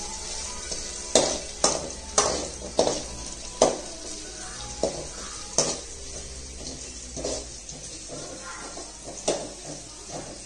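A long-handled metal ladle stirring chopped onions in an aluminium kadai, with irregular sharp knocks each time it strikes the pan's side, about one every second.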